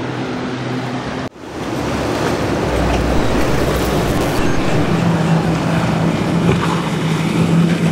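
Motorboat engine running steadily over rushing water and wind. The sound cuts off abruptly a little over a second in and picks up straight away as louder water and wind rush, and a steady engine hum comes back about halfway through.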